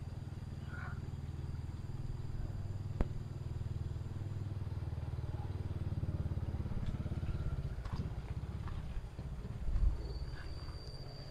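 A small engine running steadily with an even low pulsing, easing off after about eight seconds, under a thin steady high whine; a single click about three seconds in and a short low thump near the end.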